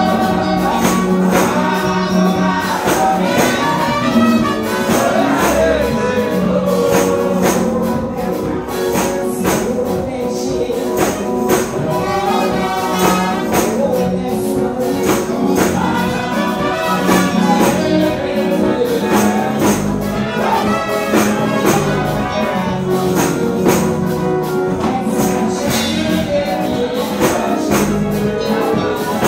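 Gospel praise music with tambourine and a steady beat, with singing.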